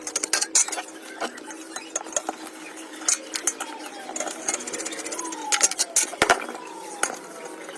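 Irregular clicks and metallic taps of hand tools working on ceiling fan parts, loudest about six seconds in, over a steady hum.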